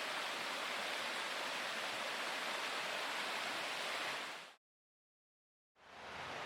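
Steady rush of flowing stream water. It fades out to complete silence about four and a half seconds in, then fades back in near the end.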